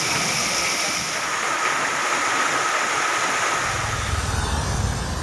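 Heavy rain pouring onto a street, a dense steady hiss. About three and a half seconds in it cuts to the low rumble of slow traffic: scooter, motorbike and car engines on a wet road.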